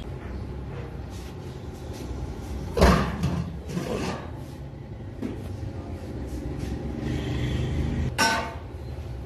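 A metal tray lid is lifted off a large aluminium biryani pot (degh) with a loud clatter about three seconds in, and a metal ladle knocks and rings against the pot near the end. A gas burner rumbles steadily underneath.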